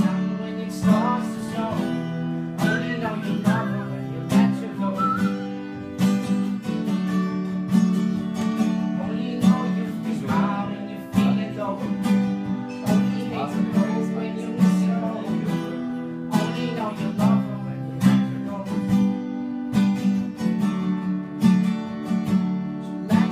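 Two acoustic guitars strummed together in a steady rhythm, with a voice singing along.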